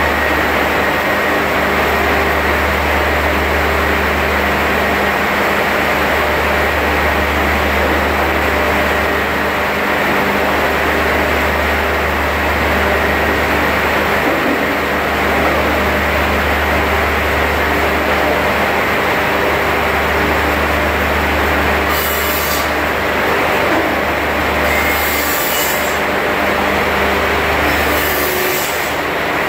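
Finger-joint line machinery running with a steady low electric-motor hum and mechanical noise. Near the end come three short, high hissing bursts.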